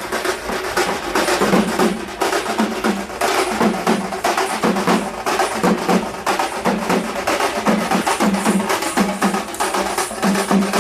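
Fast drum-led percussion music, dense with rapid strikes over a repeating low drum beat.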